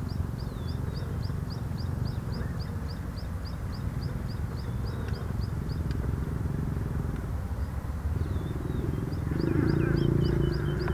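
White lions growling during mating: a low rumbling growl that swells louder about nine seconds in. A small bird chirps rapidly in the background, about three times a second, pausing midway.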